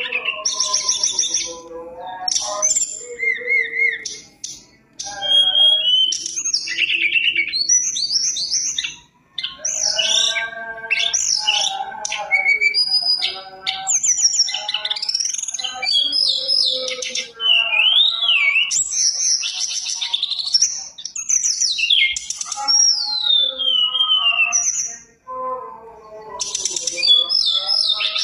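Caged tledekan gunung singing a long, varied song of clear whistles, sliding notes and rapid trills, with short breaks about four, nine and twenty-five seconds in.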